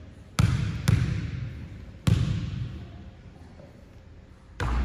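A basketball bounced three times on a hardwood gym floor, each bounce echoing around the hall: a free-throw shooter's dribbles before the shot.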